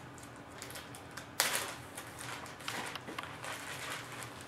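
Clear plastic bag crinkling and paper manuals rustling as they are slid out of the sleeve, in irregular bursts, the loudest starting about a second and a half in.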